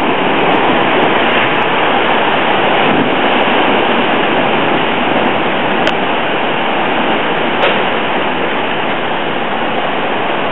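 Hurricane wind and heavy rain: a loud, steady rush of noise with no let-up.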